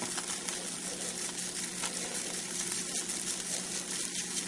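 Food sizzling and crackling as it scorches directly on a red-hot electric coil stove burner, a steady hiss with fine crackles throughout. A steady low hum sits beneath it.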